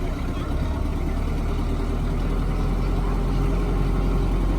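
A motor vehicle's engine running with a steady low rumble that grows slowly louder.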